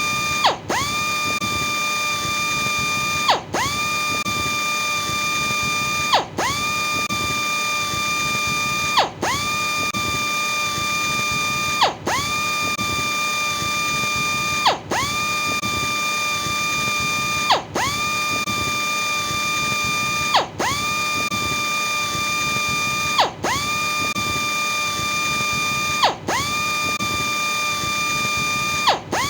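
Electric sander running with a steady high whine and grinding hiss. About every three seconds the whine briefly dips in pitch and level, then comes back up to speed.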